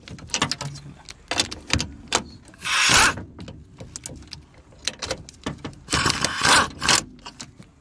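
Hand socket ratchet clicking in several short bursts as it snugs the upper mount nuts of a rear strut assembly, tightened only lightly and not yet torqued down.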